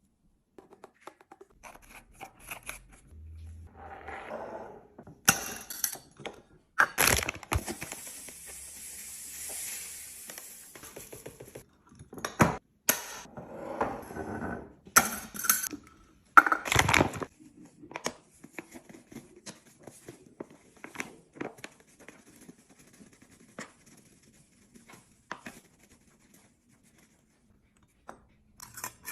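Packaging and containers being handled while a fridge is restocked: plastic rustling and tearing, with clicks and several sharp knocks of items being set down.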